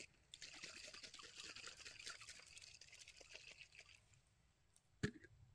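Faint sound of water being poured and swirled in a small glass bottle to rinse it out, lasting about four seconds and fading away. A single sharp knock follows about five seconds in.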